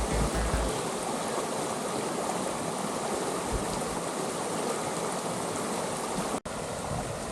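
Rapids of the Coleman River, a rocky mountain river, rushing steadily. The sound drops out for an instant near the end.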